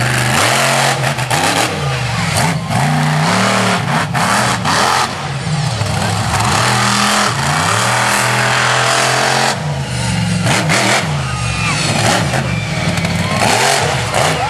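Monster truck engine revving hard, its pitch climbing and falling again and again as the truck accelerates, lets off and accelerates across the dirt track.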